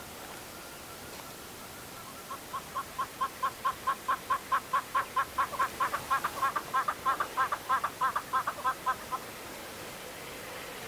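An animal calling a long run of short, evenly pitched notes, about four to five a second. The run starts about two seconds in, grows louder and a little quicker, and stops abruptly near the end, over a steady background hiss.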